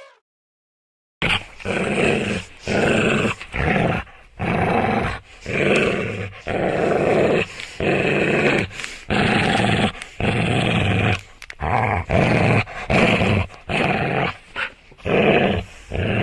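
A dog growling and barking in a run of rough bursts, about one a second, starting a little over a second in.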